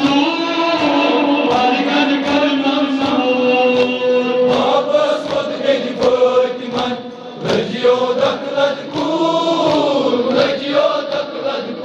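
Men chanting a Kashmiri noha (Shia lament) together, kept in time by a steady rhythm of chest-beating (matam) at about two to three strikes a second.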